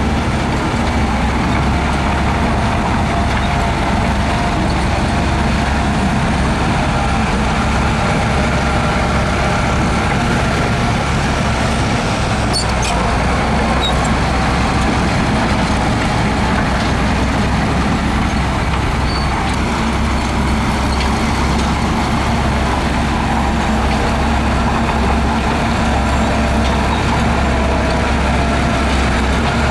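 Heavy diesel earthmoving machinery running steadily under load, a deep continuous engine rumble, with a few brief clinks about halfway through.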